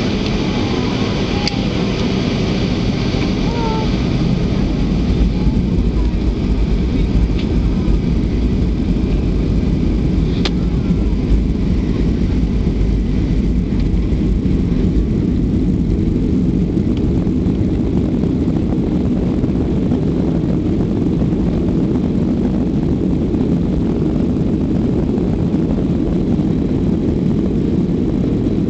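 Boeing 757 cabin noise during takeoff: a steady, loud, deep rumble of the jet engines and airframe, heard from inside the cabin, growing slightly louder about five seconds in.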